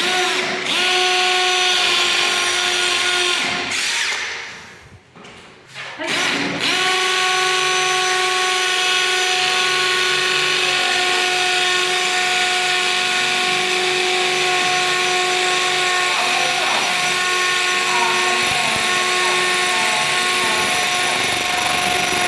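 Tanzu cordless impact drill's motor running at a steady whine. It winds down and stops about four seconds in, starts again briefly, then runs steadily on from about six and a half seconds.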